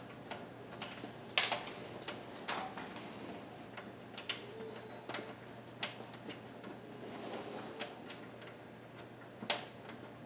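Scattered clicks and knocks of hand tools and small metal and plastic parts being handled while 10 mm body bolts are taken out of a car's wheel splash shield, at irregular spacing with sharper knocks a little after a second in and twice near the end.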